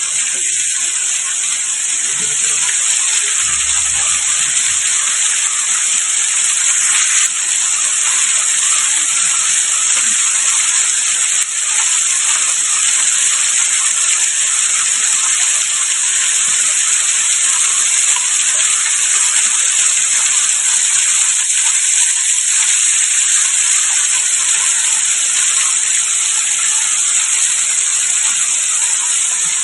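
Waterfall: falling water rushing with a steady, even hiss.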